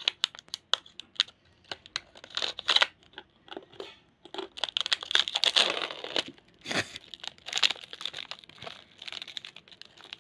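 Razor blade slitting a plastic biscuit wrapper, heard as a run of small sharp clicks and tearing, then the wrapper crinkling as it is pulled open over the biscuits.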